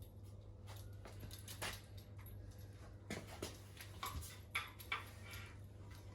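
Faint workshop handling noises: scattered small clicks, taps and scrapes over a steady low hum, with a few sharper knocks in the second half.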